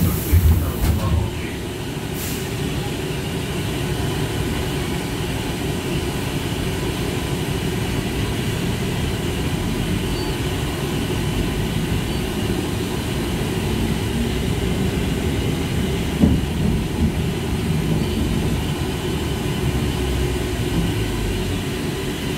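A TrolZa-62052.02 electric trolleybus on the move, heard from inside the cabin: a steady low running rumble with a faint whine. A few knocks come near the start and one more about two-thirds of the way through.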